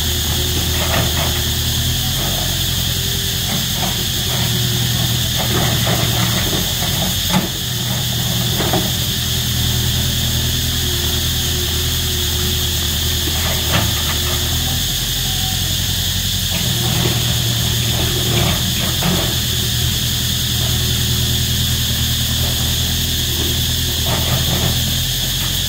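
Diesel engine of a Komatsu hydraulic excavator running steadily as it digs, its note shifting now and then with load, with a few knocks, the sharpest about seven seconds in. Over it, cicadas call loudly and steadily.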